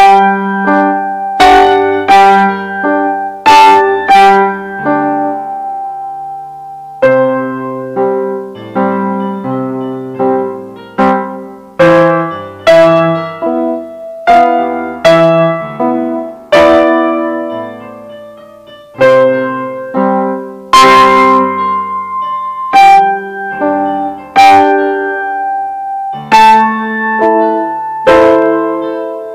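Digital piano playing a waltz at sight, with low bass notes under chords and melody, each note struck and then dying away. There are brief pauses in the playing, typical of a first sight-read.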